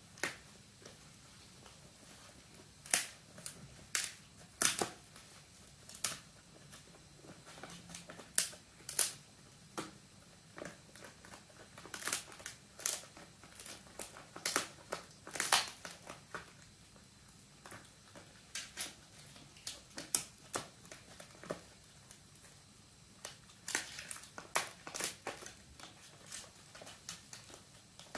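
An Italian greyhound chewing a dried pig ear: irregular sharp crunches and cracks, coming in clusters with short pauses between.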